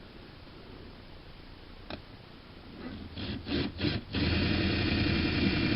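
Electric drill drilling rivet holes in belt patches: a click, a few short trigger blips from about 3 s in, then the drill runs steadily from about 4 s on.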